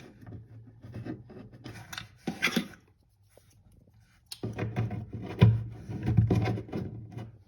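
Shelf brackets being fitted into the holes in a wall cabinet's side panels: small clicks, taps and rubbing in two spells, with one sharper knock about five and a half seconds in.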